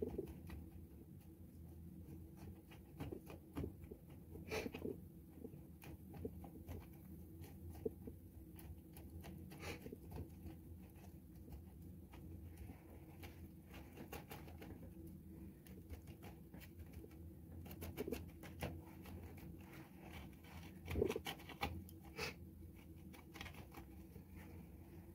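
Fingers pressing and poking granular bonsai soil into a pot around a juniper's roots: soft scattered crunching, scratching and small clicks of the grains, over a faint steady low hum.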